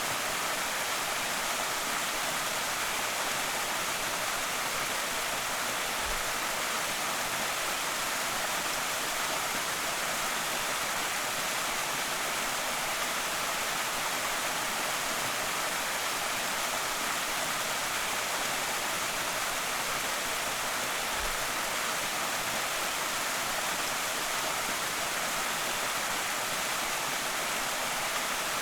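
Creek waterfall pouring steadily: an even, unbroken rush of falling water, mostly in the higher range, with no pauses or changes.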